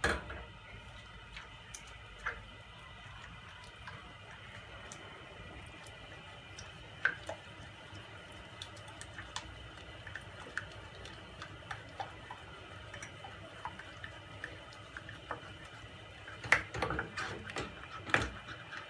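Wooden spoon stirring milk into melted butter in a saucepan for a béchamel, with scattered light taps of the spoon against the pan over a steady low hiss. A louder run of knocks comes near the end.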